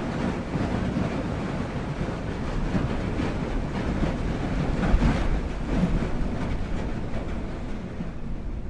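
Steady low rumble of a car ferry under way, with water washing along the hull.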